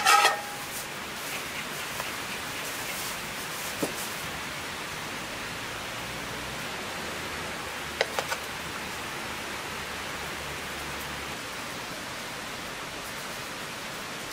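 Steady hiss of light rain, with a loud ringing clink of a metal serving plate and spoon at the very start and a few quick light taps about eight seconds in, as rice pilaf is scooped from a cast-iron pot onto the plate.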